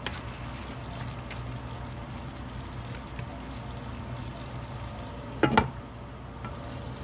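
Pork belly and chilies sizzling steadily in a stainless steel pan, stirred with a wooden spatula at first. About five and a half seconds in, a glass lid is set down on the pan with a sharp clink, covering it to cook.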